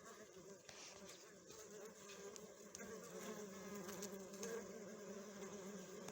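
Honey bees humming at a hive, a steady low buzz of many bees together.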